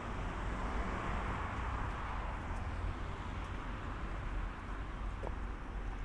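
Outdoor street ambience: a steady low rumble and the hiss of distant road traffic, swelling about a second in and then slowly fading.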